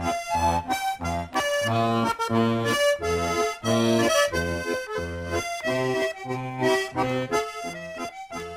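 Instrumental accordion music with a steady beat, bass notes and chords taking turns about twice a second, starting to fade out near the end.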